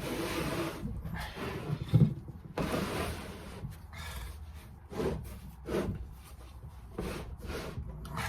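Rubbing and scraping as the machine is handled and worked on, in a string of short noisy strokes.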